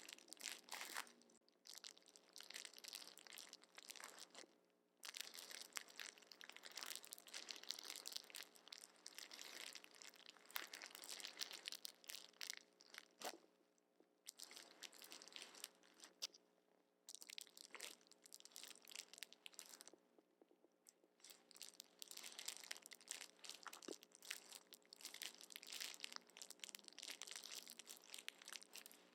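Plastic packaging being handled and crinkled, crackling in long bursts with a few brief pauses.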